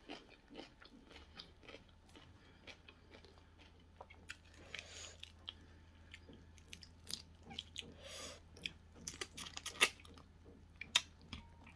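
Close-up eating sounds: chewing, with sharp crunches and clicks as grilled prawns are peeled by hand and bitten. The crunches come thicker and louder in the last few seconds.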